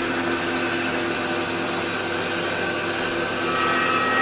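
Crankshaft grinding machine running, its wheel regrinding an engine crankshaft: a steady motor hum under a high hiss, with a higher ringing note coming in near the end.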